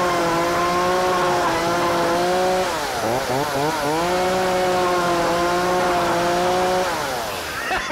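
Gas chainsaw running at high revs as its bar cuts into a plastic bucket. About three seconds in the revs dip and waver, then pick back up, and near the end the engine winds down.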